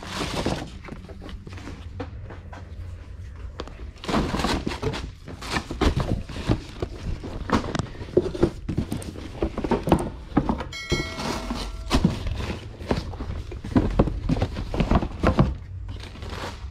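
Sneaker boxes being handled and stacked: irregular cardboard thunks and knocks with rustling, with a short pitched tone about eleven seconds in.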